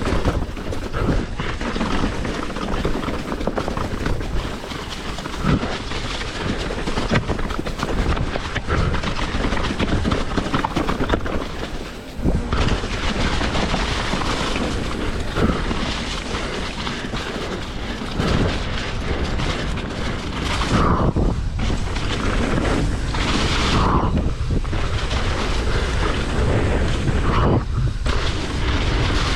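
Hardtail mountain bike ridden fast down a rough, rocky trail: tyres rumbling over dirt and rock with the bike's continuous rattling and clatter.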